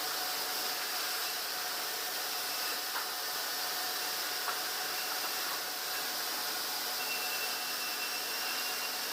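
Steady hum of sawmill machinery, with two light knocks in the middle and a faint high tone joining near the end.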